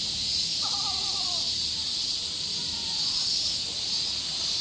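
Cicadas singing in a steady, high-pitched chorus, with a crow cawing once about a second in.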